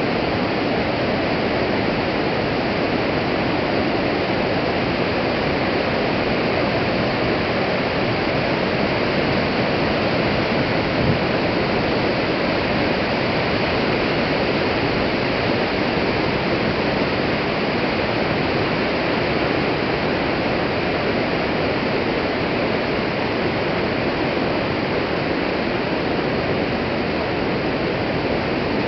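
Steady rush of a river in flood, brown water pouring over a falls.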